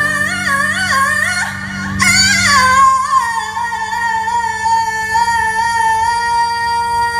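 A singer with the band over the PA, the voice wavering up and down, then settling about three seconds in on one long high note.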